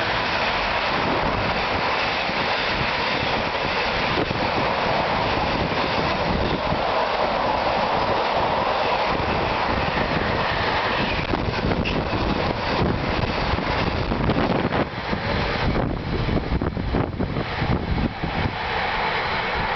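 Freight train wagons loaded with shipping containers and tank containers rushing past on the rails at speed, a steady loud rumble and rail noise. It turns choppy and uneven over the last few seconds as the end of the train goes by.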